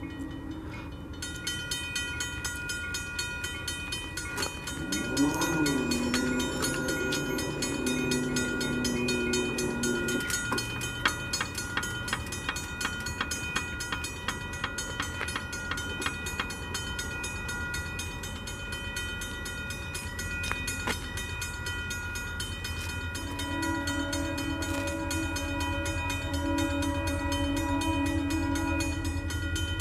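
Approaching diesel locomotive sounding its multi-note air horn: a long blast from about 5 s to 10 s, and another starting about 23 s in, over a low engine rumble that grows louder as the train nears.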